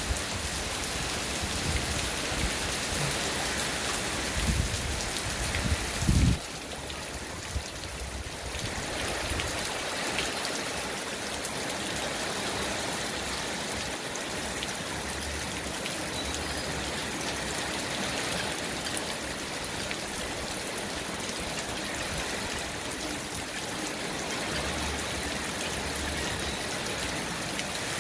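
Steady rain pattering on garden trees and leaves, with drops falling from a roof eave. There are a few dull low thumps in the first six seconds, and the rain sound dips slightly about six seconds in.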